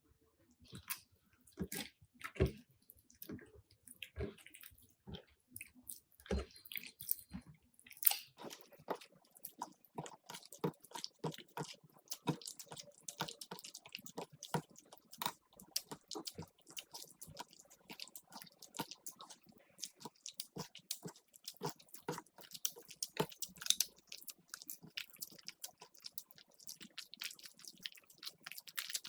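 Crunchy slime worked by hand, crackling and popping: scattered sharp pops at first, then from about eight seconds in a dense, fine crackle.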